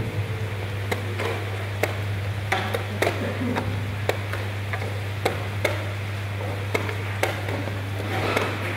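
Chess pieces knocked down on the board and chess clock buttons pressed in a fast blitz game: sharp, irregular clicks and knocks, one or two a second, over a steady low hum.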